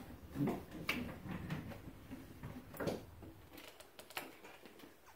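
A few soft, scattered clicks and taps from a dry-erase marker being handled against a whiteboard.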